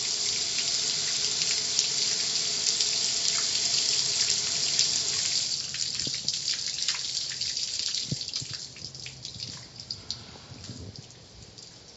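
Car wash water spray hissing against a car, easing off about halfway through into scattered drips and spatters that fade away.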